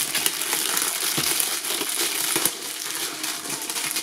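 Plastic shrink-wrap film being torn and pulled off a cardboard box: dense, continuous crinkling and crackling.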